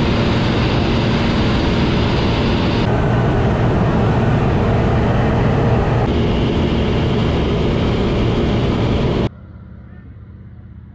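Single-engine floatplane's engine and propeller, a loud steady drone heard from inside the cabin in flight. About a second and a half before the end it cuts off suddenly to a much quieter background.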